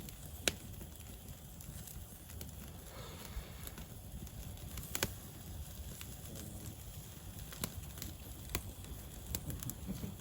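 Wood fire crackling, with a handful of sharp pops scattered through it over a steady low rumble.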